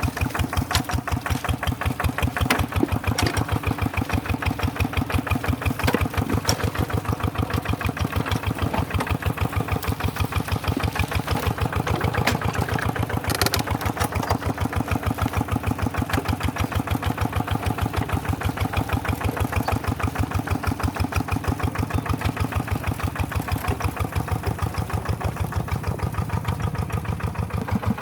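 Tractor engine running steadily with an even, regular chugging beat.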